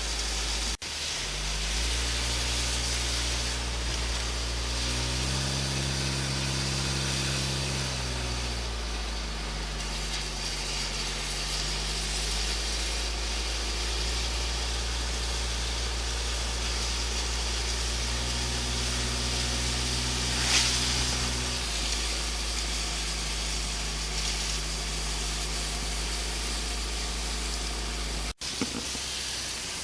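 Car engine and road noise while driving, the engine note rising and falling several times with speed over a steady low rumble and hiss.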